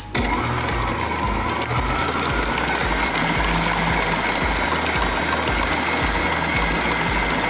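Stand mixer running at high speed, its wire whisk beating egg whites in a metal bowl toward soft peaks for meringue: a steady whir with a high whine that cuts in suddenly at the start.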